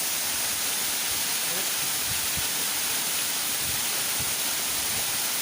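Steady rushing of a waterfall, its falling water making an even hiss-like roar.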